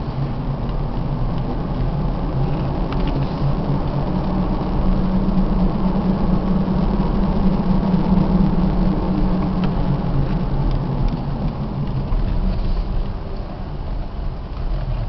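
Car engine and road noise heard from inside the cabin as the car drives slowly. The hum gets louder through the middle, then eases near the end as the car slows.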